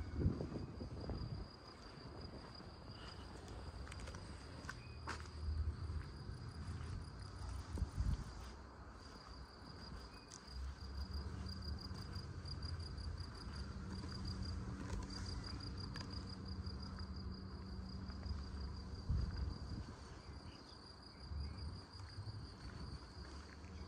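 Insects chirping in a high, even, pulsing trill that runs almost throughout. Underneath are low thumps and rumble of a walker's footsteps, loudest just at the start, around the middle and again later.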